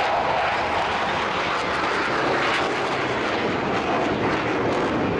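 Jet engine noise from two JASDF F-15J Eagle fighters flying past in close formation, each with twin Pratt & Whitney F100-family turbofans. The noise is loud and steady.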